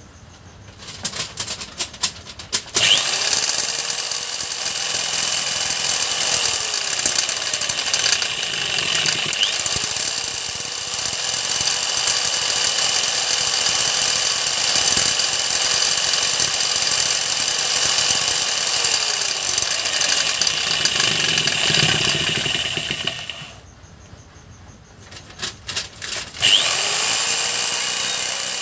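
Handheld electric drill running at speed, spinning an old water-pump motor that is working as a generator. It starts after a few short blips about three seconds in, its pitch dips and recovers a few times, then it stops for a few seconds near the end and starts again.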